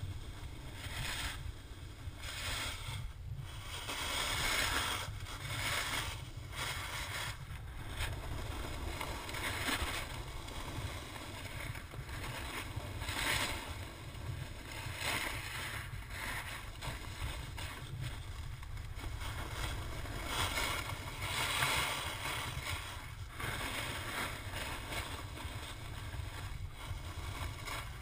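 Snowboard sliding and carving over packed snow, its edge scraping in a swelling hiss every two or three seconds as the rider turns. Wind rumbles low and steadily on the camera's microphone.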